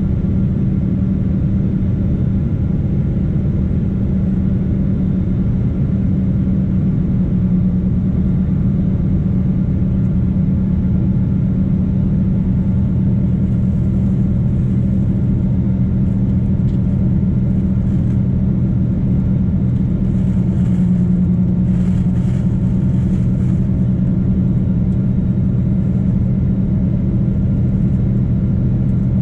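Boeing 777-200 jet engine noise heard inside the passenger cabin during the climb after takeoff: a loud, steady drone with a steady low hum.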